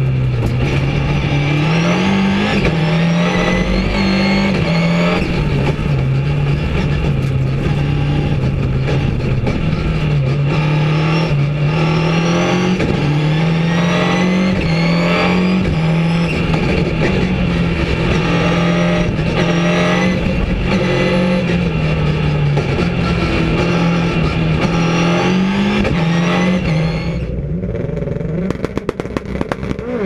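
Ford Focus rallycross Supercar heard from inside the cabin at racing speed: its turbocharged engine revs hard, the note climbing and then dropping with each gear change, with scattered sharp knocks. Near the end the engine sound falls away and a quick run of clicks follows.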